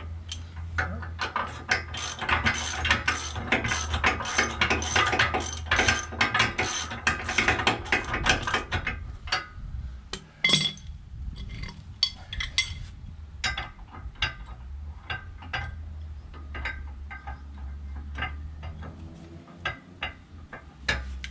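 Hand socket ratchet clicking rapidly as it runs nuts down onto the bolts of a bike-rack mounting plate, then slower, scattered clicks for the rest of the time, over a steady low hum.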